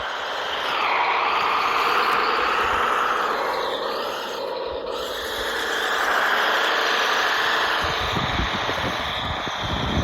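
Electric drive motor and gearbox of a radio-controlled Kyosho Blizzard tracked snow vehicle whining under throttle. It swells and bends in pitch twice as it speeds up and slows, with low rumbling knocks near the end.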